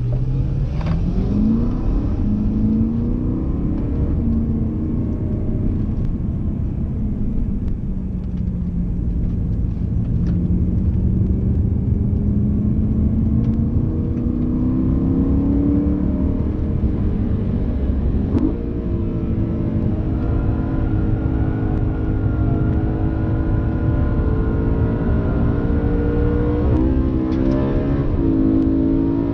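BMW M3 E92's V8 engine heard from inside the cabin, pulling on track with its pitch climbing in long sweeps. About two-thirds of the way through the pitch drops suddenly at a gearshift, then climbs again, with quick shifts near the end.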